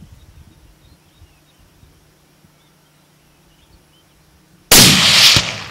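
A single hunting rifle shot, sudden and very loud near the end, its report dying away over about a second. Before it there is near quiet with faint bird chirps.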